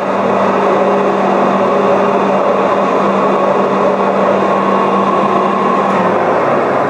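Large JMT HB200 welding positioner tilting its table: the electric tilt motor and oil-bath gear reducers run with a steady hum and a steady higher whine. The low part of the hum drops out near the end.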